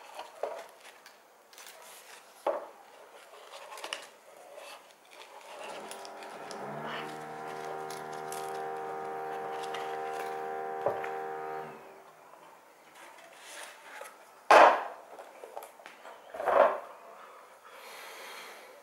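Unboxing handling noise: rustling and light clicks as a nylon knife sheath and a cardboard box with a foam insert are handled, with two sharp knocks a couple of seconds apart in the latter part. From about six to twelve seconds in, a steady hum sits underneath.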